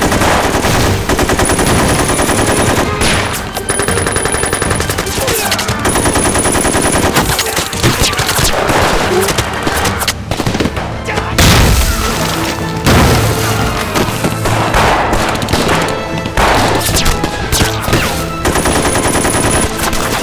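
Battle sound effects: rapid, sustained machine-gun fire mixed with rifle shots, with a few deep booms of explosions.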